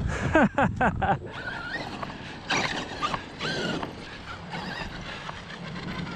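Brushless motor of a Traxxas X-Maxx 8S RC monster truck whining through quick throttle blips: four or five short bursts in the first second, each falling sharply in pitch. Shorter wavering whines and rougher noisy stretches follow as the truck runs over dirt.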